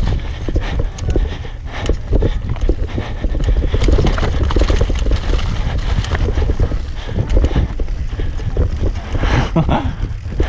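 Wind buffeting and tyre rumble on a helmet- or bike-mounted action camera during a fast mountain-bike descent on dirt singletrack. A steady run of clacks and rattles comes from the chain and suspension as the bike crosses roots and bumps. There is a brief louder burst about nine seconds in.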